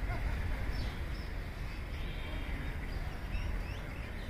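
Outdoor ambience: a steady low rumble with several short, faint bird chirps scattered through it.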